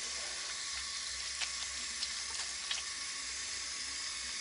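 Water running from a tap in a steady hiss, with a few faint wet clicks as a bar of soap is worked into a wet washcloth to build lather.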